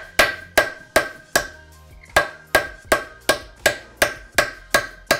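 Hammer striking a pin punch, driving a pin back in the shift turret of a 1999 Mazda Miata NB five-speed transmission: steady metal-on-metal blows about three a second, each ringing with a high note, with a short pause about two seconds in.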